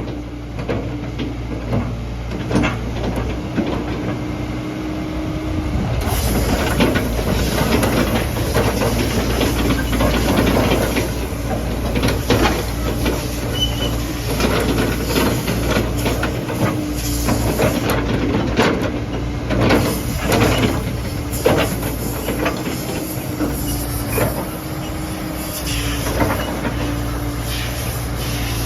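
Komatsu PC70-8 excavator's diesel engine running steadily, with repeated metal clanks and knocks from the machine working.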